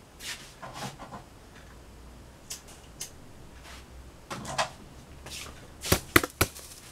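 Scattered rustles and light knocks of things being handled, with three sharp clicks in quick succession near the end.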